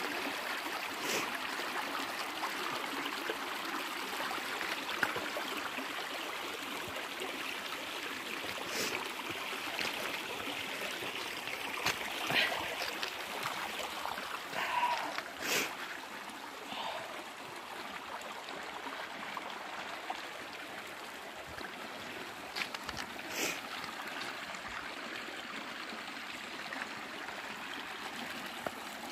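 A small stream of running water, a steady rush and trickle, with a few short sharp clicks or knocks here and there.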